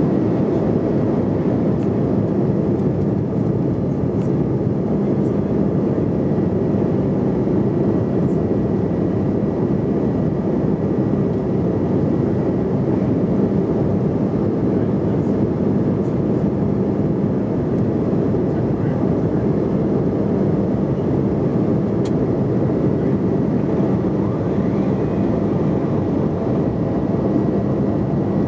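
Steady cabin noise inside a Bombardier CRJ regional jet in flight: a continuous rush of airflow with the hum of its rear-mounted turbofan engines.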